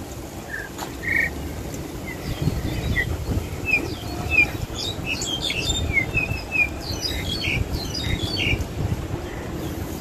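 Starlings singing in full song in a tree: a run of varied short chirps and whistles, busiest in the middle, over a low rumble.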